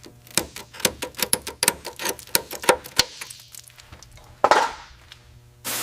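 Irregular run of sharp metallic clinks and clicks, densest over the first three seconds, then a brief hiss about four and a half seconds in.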